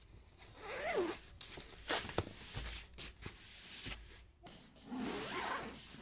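Zippers on fabric clothes storage boxes being pulled open in several short strokes.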